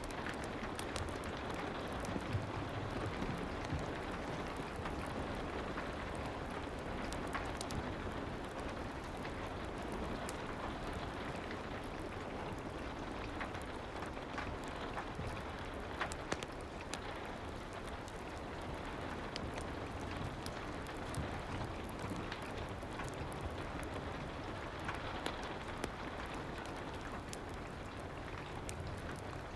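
Soft rain and fireplace ambience: a steady hiss of rain with scattered small crackles and ticks throughout.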